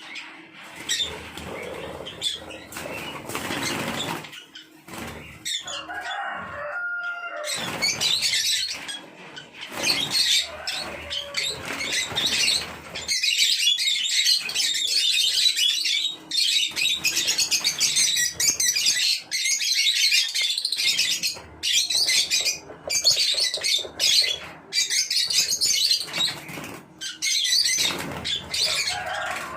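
A flock of African lovebirds in a wire colony cage: bursts of wing-flapping at first, then, from about a quarter of the way in, dense shrill chattering and chirping from many birds at once.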